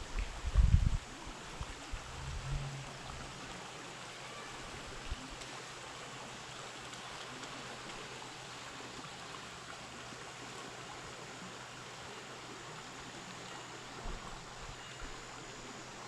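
Steady rush of a river's running water, with a few low thumps in the first second.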